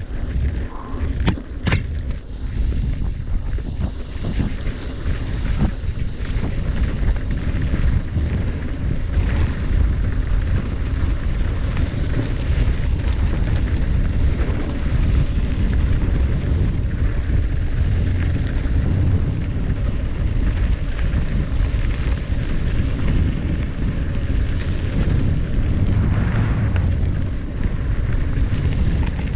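Mountain bike descending a trail, heard through an action camera's microphone: a continuous low rumble of wind buffeting and tyres rolling over dirt, with rattling from the bike and a couple of sharp clicks about a second and a half in.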